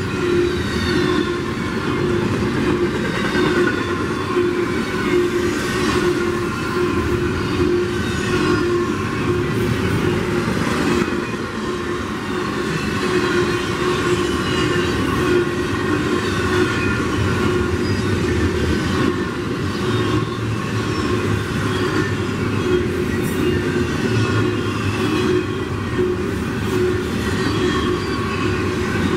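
Double-stack intermodal freight train rolling past at speed: a steady rumble and clatter of steel wheels on rail from the loaded container well cars, with a steady hum running through it.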